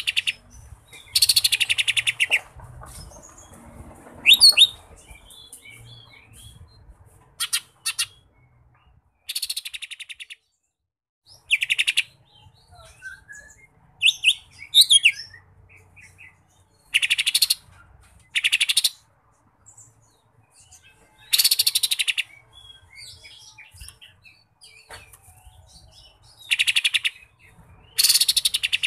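Lesser green leafbird (cucak ijo mini) singing: loud, buzzy, rattling trills about a second long repeat every few seconds, with a few clear whistled glides between them.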